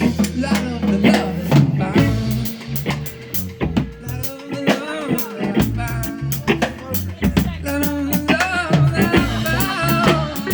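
A live band playing a song, with a drum kit keeping a steady beat under bass, guitar and singing.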